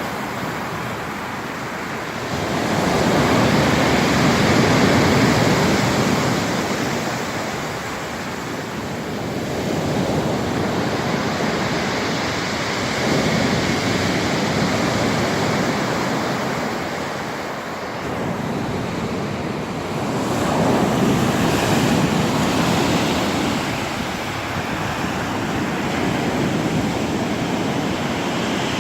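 Black Sea surf: waves breaking and washing on the shore, swelling and easing every few seconds.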